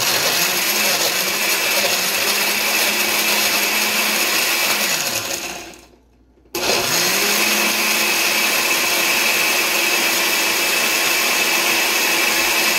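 Countertop glass-jar blender on its smoothie setting, crushing ice with frozen strawberries and orange. The motor runs steadily, winds down about five seconds in and stops briefly, then starts again and runs on until it begins winding down near the end.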